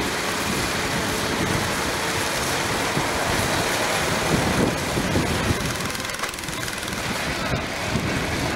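Pulling garden tractor's engine running at idle, under a steady rush of outdoor noise.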